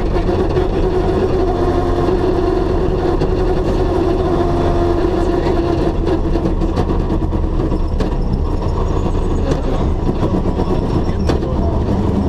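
Rally car's engine and drivetrain running steadily at cruising speed, heard from inside the cabin, with tyre and road noise. A steady whine sits over the low drone and eases off about halfway through.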